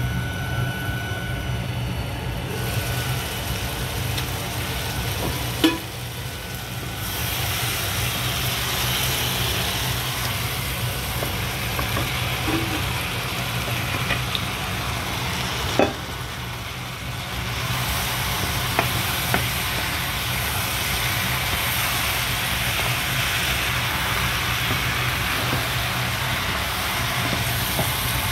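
Peppers, onions and pieces of meat frying and sizzling in a pan, over a steady low hum. Two sharp clanks of cookware come about six and sixteen seconds in.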